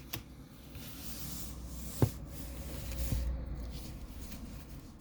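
Soft rubbing and rustling of trading cards being handled on a desk, with a sharp tap about two seconds in and a lighter one a second later.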